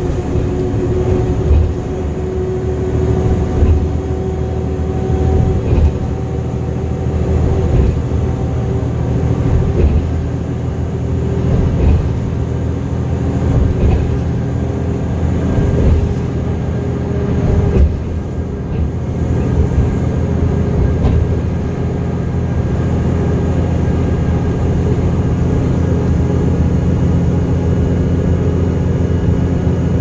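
Inside a moving bus at highway speed: steady engine hum and road rumble.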